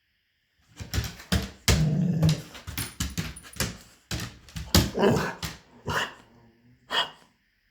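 Dog coughing in fits: a rapid run of coughs starting about a second in, a second bout around five seconds, and one last cough near the end.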